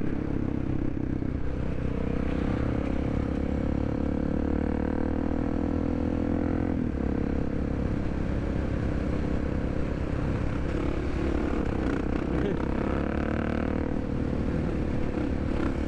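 Supermoto motorcycle engine running steadily at cruising speed, heard from the rider's helmet with wind rushing over the microphone. Another supermoto is close ahead, riding a wheelie.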